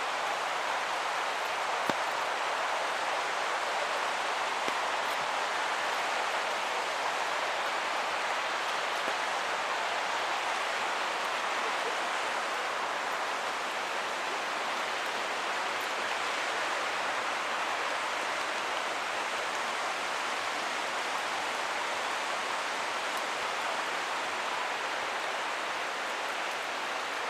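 Steady rush of a forest creek's running water mixed with falling rain, with a few faint ticks.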